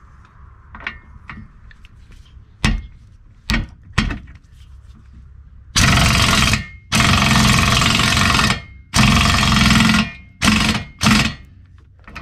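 A few sharp knocks, then an impact wrench hammering in five bursts: three of about a second each and two short ones near the end. It is driving the drive pulley onto the electric motor's splined shaft.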